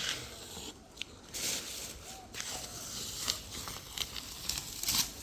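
Masking tape being unpicked and peeled off a freshly painted car panel: irregular crackling rips and rasps with a few sharp ticks.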